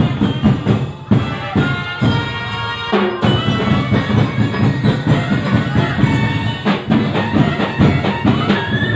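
Festival street-dance music from a drum and percussion band: drums beating a steady, driving rhythm with melodic notes held over it.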